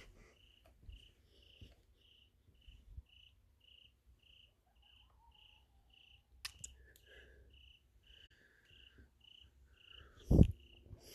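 Cricket chirping steadily, about two short chirps a second. Near the end comes a loud bump of phone-handling noise.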